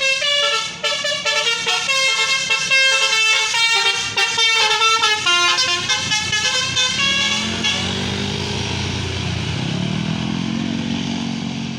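Tour bus 'telolet basuri' musical air horn playing a rapid melody of changing notes. After about seven seconds the tune stops and an engine is heard, its pitch rising and falling, with a hiss that fades near the end.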